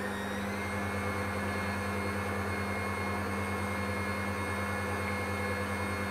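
Smeg stand mixer's motor running steadily at about half speed, its wire whisk beating egg whites in a stainless steel bowl at the start of making meringue. The whine rises slightly in the first half second as the motor comes up to speed, then holds steady.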